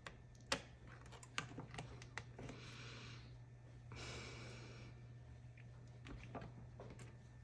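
Small plastic and metal clicks and taps from an opened iPhone being handled, as connectors are pressed home and the screen is closed down onto the frame. Two short rushing, rubbing noises come about three and four seconds in.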